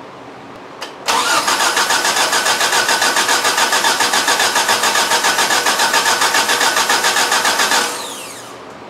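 Starter motor cranking a freshly rebuilt Mazda BP 1.8-litre four-cylinder with no fuel or spark, so it turns over without firing. It pulses evenly at about six or seven beats a second for about seven seconds, then winds down. This is priming the rebuilt engine's oil system before the first start.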